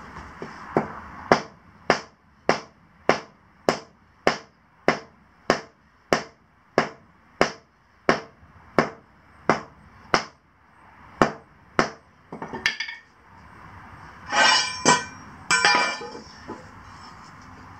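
Short-handled sledgehammer striking something set into a hole in a concrete floor: about eighteen steady blows, a little under two a second, that stop about twelve seconds in. Near the end come two short scraping sounds.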